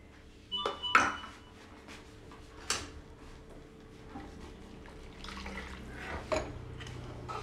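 Steel mixer-grinder jar and its lid clinking, with a sharp metallic clatter about a second in and another clink a little later, then water pouring from the jar into a kadai of tomato masala near the end.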